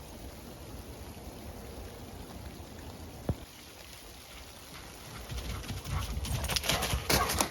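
Footsteps crunching on the forest floor, starting about five seconds in and growing louder, after a faint steady outdoor background with a single sharp click.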